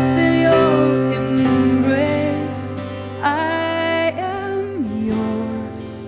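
A live worship band plays a slow song, with a singer holding long, gliding notes over sustained guitar and keyboard chords. The sound dies away near the end.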